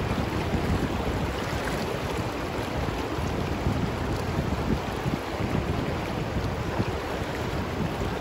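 Steady rush of a fast, rocky river riffle, with wind buffeting the microphone and adding an uneven low rumble.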